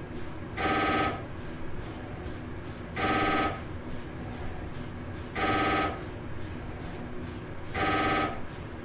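Telephone ringing with an electronic trilling ring, four short rings about two and a half seconds apart, a faint steady hum between them.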